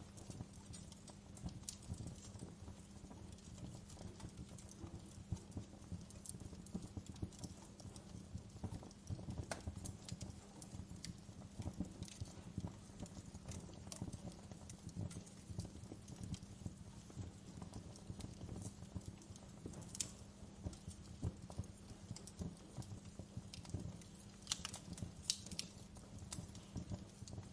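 Wood fire crackling in a fireplace: a steady bed of small crackles with occasional sharper pops, one about twenty seconds in and a cluster near the end.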